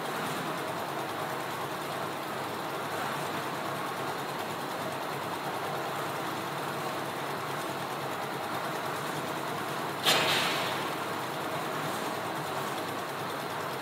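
A concrete mixer's engine running steadily. About ten seconds in, a sudden loud burst of noise fades out over about half a second.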